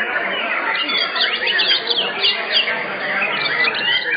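White-rumped shamas (murai batu) singing in contest cages: rapid, varied phrases of quick sweeping notes, several birds overlapping into a dense mix.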